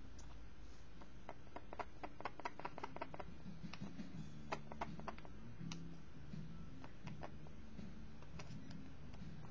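A quick run of light, irregular clicks for a few seconds, then faint background music with a low melody.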